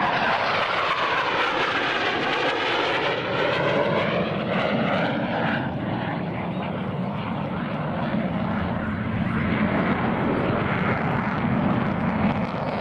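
US Navy F/A-18 Hornet jet engines at high power as the jet passes and climbs away. The engine noise is loud and steady, with a sweeping, phasing whoosh in its tone over the first few seconds.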